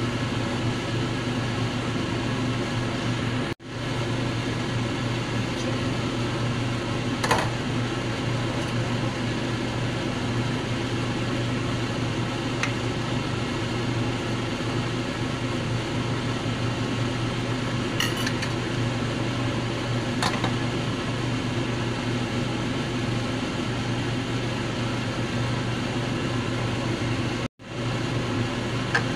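A steady electric hum and whir, like a kitchen appliance's fan running, with a few light clinks of a metal spoon against the saucepan.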